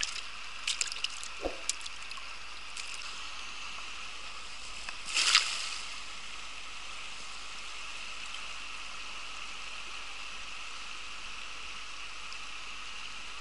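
Steady rush of a shallow river running over stones, with a few light clicks in the first second or two. About five seconds in comes one louder splash as a nylon cast net lands on the water.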